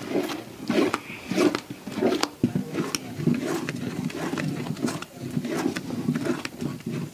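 Thick jackfruit pulp cooking in a large metal pot, giving irregular low plops and squelches as the heavy paste is stirred and heats. Scattered sharp crackles come from the wood fire beneath.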